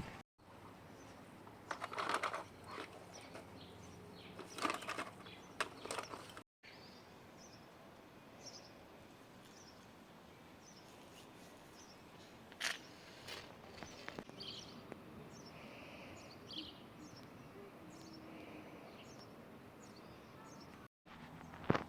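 Faint outdoor ambience with a small bird chirping over and over, short high chirps about once or twice a second; in the first few seconds a few louder rustling knocks.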